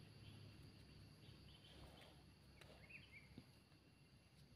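Near silence: faint outdoor ambience with a few faint, short high chirps about midway through.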